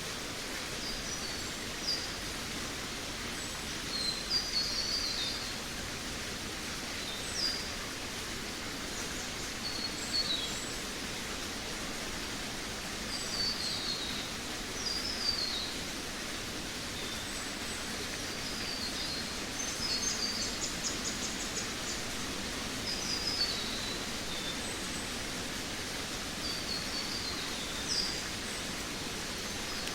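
Forest songbirds singing short, high, mostly falling phrases every second or two over a steady background hiss, with a quick rapid trill about two-thirds of the way through.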